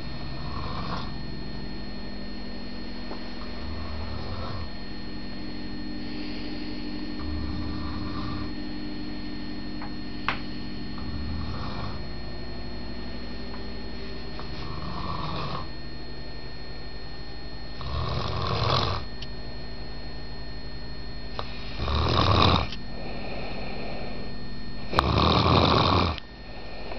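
Snoring in slow, regular breaths, one about every three and a half to four seconds. The last three snores are much louder than the earlier ones, and the one near the end is the loudest.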